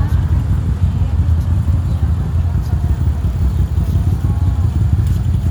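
City street background: a loud, steady low rumble, with faint voices in the middle.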